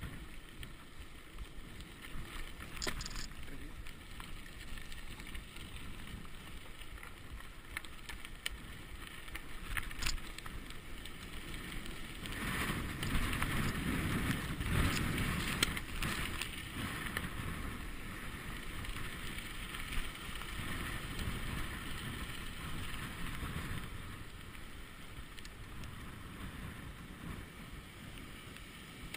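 Mountain bike riding over gravel and dirt, heard through an action camera: tyres rolling, the bike rattling, and wind on the microphone. The noise swells and gets rougher for a few seconds in the middle over a bumpy dirt stretch, with a couple of sharp knocks earlier on.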